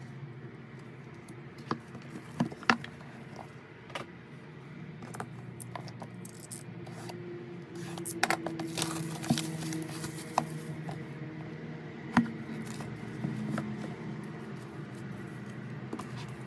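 Hands handling and opening album packaging: scraping and rustling with scattered sharp clicks, busiest about halfway through, over a steady low hum.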